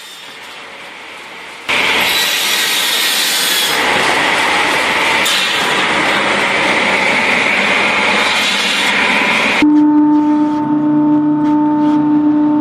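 Wood-processing machinery. Quiet at first, then a loud, rough sawing or grinding noise starts suddenly about two seconds in and runs for about eight seconds. It then switches abruptly to a steady machine drone with a strong, even hum.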